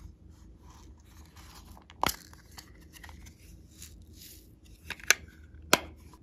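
Small hard plastic case being handled: soft rustling and scraping as sequins are tipped out, with sharp plastic clicks of its lid about two seconds in and a few more near the end.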